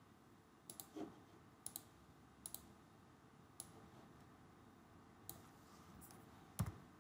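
Computer mouse clicking, faint single and double clicks spaced roughly a second apart over quiet room tone, with a soft low thump near the end.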